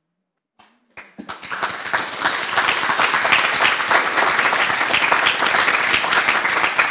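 Audience applauding, breaking out about a second in after a moment of silence and then holding steady.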